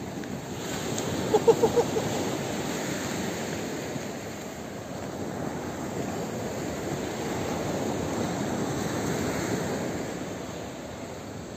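Surf washing onto a sand beach with wind on the microphone, a steady rush that slowly swells and eases. About a second and a half in, four quick pitched squeaks stand out briefly.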